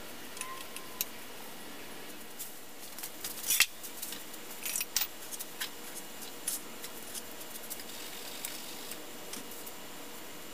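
Scattered sharp clicks and knocks of wooden molding flasks and hand tools being handled and set in place, the loudest about three and a half seconds in.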